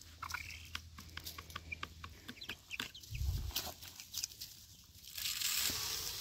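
Young chickens clucking and giving short high peeps while pecking at bok choy leaves held in a hand, with many quick pecking clicks. There is a low thud about three seconds in and about a second of rustling near the end.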